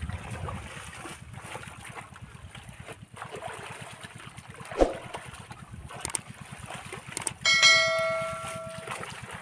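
Water sloshing and splashing as hands work in shallow river water, with a few sharp splashes. Near the end a single bell-like ringing tone sounds and dies away over about a second and a half.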